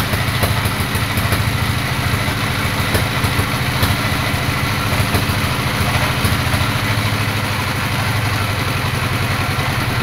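Band sawmill running, its engine going steadily with a rapid, even low thumping.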